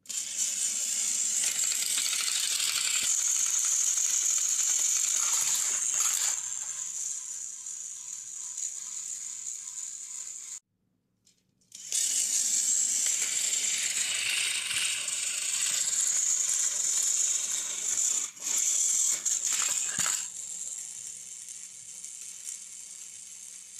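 Battery-powered Thomas & Friends toy train engine running on plastic track: a steady high motor whine with gear and wheel rattle. It cuts out for about a second near the middle, starts again, and drops to a quieter running sound for the last few seconds.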